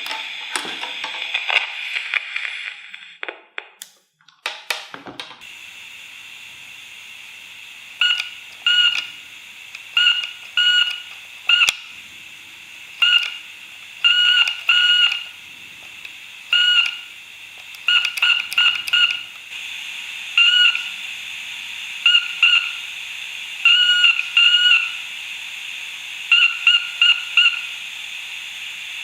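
Vintage Morse code transceiver sending Morse code: a high beep keyed on and off in short and long tones (dots and dashes) over a steady hiss, starting about eight seconds in. The first few seconds hold scattered clicks and knocks.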